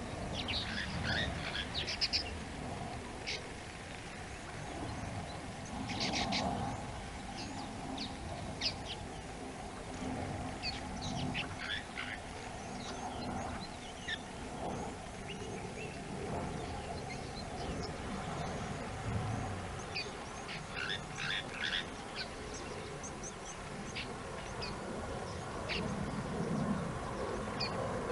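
Wild birds calling in short chirps and trills, in clusters every few seconds, over a steady low outdoor background noise.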